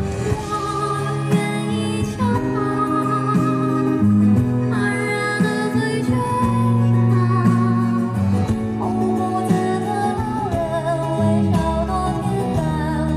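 A woman sings a Mandarin song into a handheld microphone, holding long notes, with live band accompaniment underneath.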